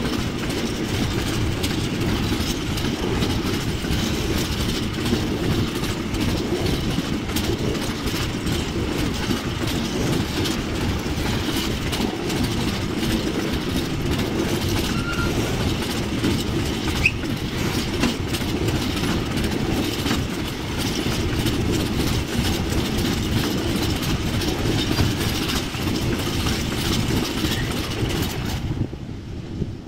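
Container freight train's wagons rolling past at close range: a steady rumble of steel wheels on the rails, with clicks as the wheels cross rail joints and a brief wheel squeal about 17 seconds in. The sound drops away sharply just before the end.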